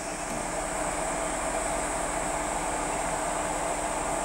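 Electric locomotive standing with its cooling blowers running: a steady fan-like whir with a low, even hum.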